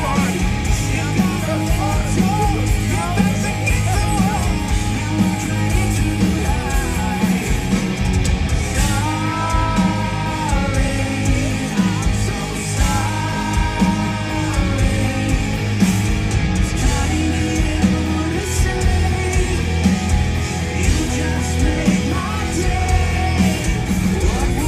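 Live rock band playing loud, with electric guitar and bass under a male lead singer, heard from within the crowd.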